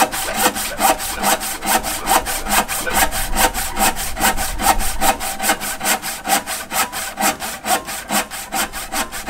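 Wooden-handled handsaw rip-cutting along a rough timber plank: a quick, even run of rasping back-and-forth strokes.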